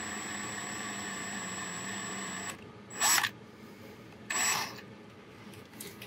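Power drill running steadily with a thin high whine as a tiny bit bores a screw hole into a die-cast metal 1/64 car body, stopping abruptly about two and a half seconds in. Two short bursts of noise follow.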